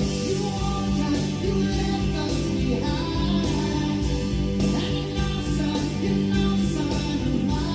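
A recorded song with a singer over guitar and a steady, pulsing bass line, played back through a Yamaha CA-810 integrated stereo amplifier.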